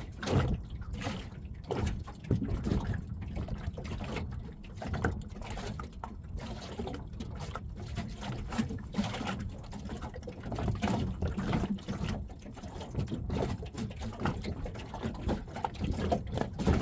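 Water lapping and slapping irregularly against the hull of a small boat, over a steady low rumble.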